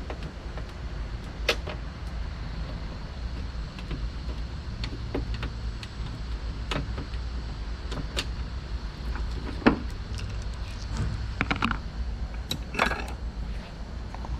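Scattered clicks and metallic taps of hand tools and loose parts inside a car door as the door latch's Torx screws are worked out, busier in the second half, over a steady low rumble.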